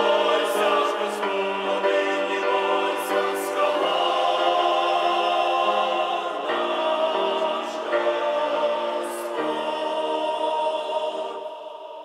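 Church choir singing a hymn in harmony, several voice parts holding sustained notes together; near the end the phrase finishes and the sound dies away.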